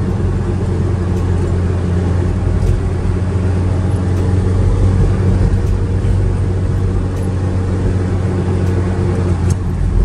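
A car driving at a steady cruise, its engine and tyre-on-road noise heard from inside the cabin as a continuous low hum.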